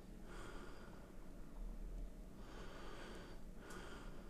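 A man breathing quietly through his nose close to the microphone, a few soft breaths, over a faint steady hum.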